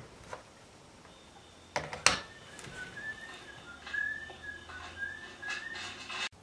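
A person whistling a short wavering high-pitched tune in broken notes, after two sharp knocks about two seconds in.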